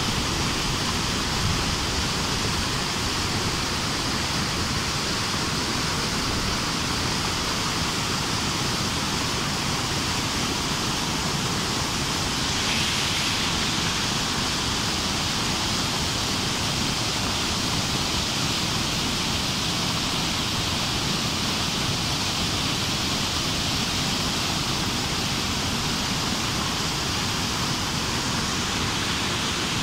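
Whitewater of a river rushing below a weir: a steady, unbroken rush of water.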